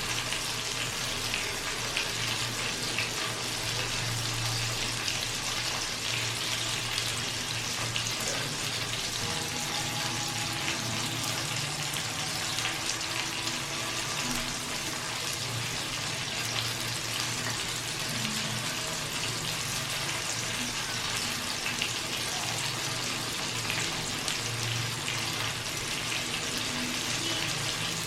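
Chicken roasting, its fat sizzling steadily with a dense scatter of small pops and crackles, over a low steady hum.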